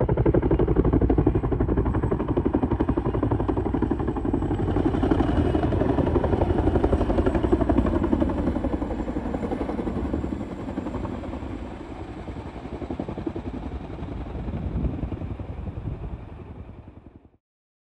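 Firefighting helicopter hovering low, its rotor beating in a rapid, steady chop. It eases a little about two-thirds of the way through, swells again, then fades out near the end.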